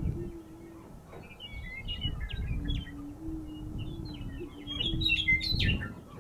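Greater prairie chickens booming on a lek: low, hollow, steady moaning notes, a short one ending about a second in and a long one from about two and a half seconds to near six, mixed with short higher chirping and cackling calls that grow busier near the end. Low rumbling thumps run underneath.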